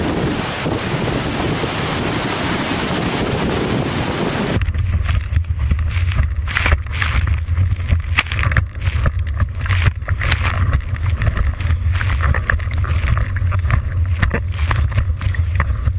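Strong wind rushing over an open microphone. About four and a half seconds in it changes abruptly to the muffled low rumble of a GoPro in its waterproof housing on a windsurf boom, with frequent splashes of spray as the board planes fast over choppy water.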